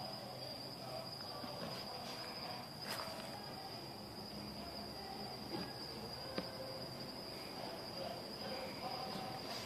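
Crickets trilling, one steady high-pitched tone without a break, with two faint clicks, about three seconds in and again a little past six seconds.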